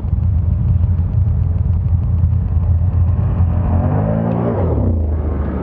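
ATV engine running steadily while riding, its pitch sweeping as it revs about four seconds in.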